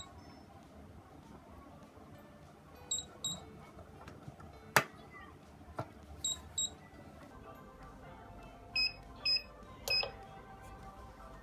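Digital mug heat press: short paired electronic beeps about every three seconds, a sharp clack about five seconds in as the mug clamp is locked shut, then three lower-pitched beeps near the end as the controller's buttons are pressed and the countdown timer starts.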